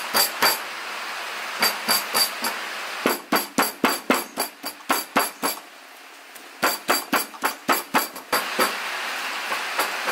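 Kitchen knife rapidly chopping raw pork into mince on a wooden cutting board: sharp repeated knocks of the blade hitting the board, about four a second, with a brief pause a little after halfway.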